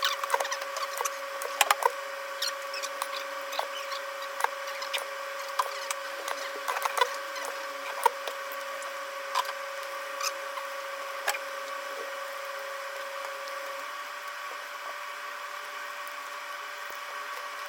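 Small hard clicks and taps of tools and phone parts being handled on a repair bench, frequent at first and thinning out after about eleven seconds, over a steady electrical hum.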